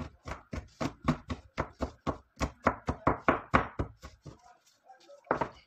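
Garlic being chopped with a knife on a plastic cutting board: quick, even knife strikes about five a second, stopping about four seconds in, then one more knock near the end.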